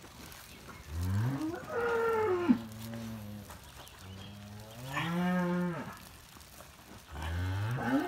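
Cow in labour mooing during a hand-assisted calving: three long, loud moos, the first about a second in rising and then falling in pitch, another in the middle, and a third starting near the end.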